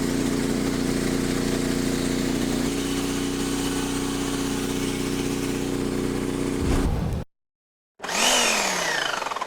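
An engine running steadily, its pitch shifting slightly about three seconds in, then cutting off about seven seconds in. After a short silence comes a sound whose pitch falls over about a second.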